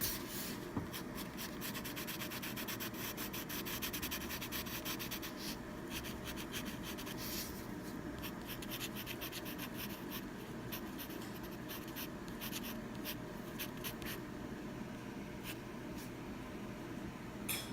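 White coloured pencil (pencil crayon) scratching lightly on sketchbook paper in many quick short strokes, with brief pauses between runs, as highlights are added over dry watercolour.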